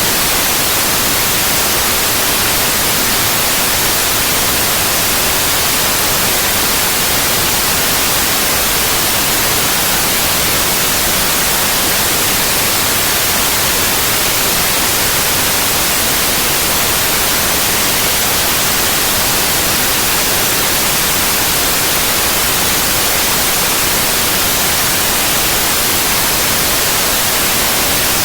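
Steady synthetic white noise, an even hiss across all pitches with no change or interruption.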